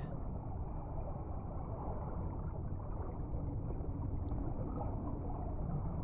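Steady, muffled rush of flowing mountain-stream water, with a few faint ticks near the middle.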